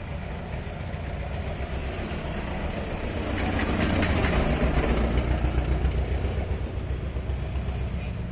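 Road traffic: passing vehicle engines with a steady low rumble, swelling as a motorbike passes close about four seconds in.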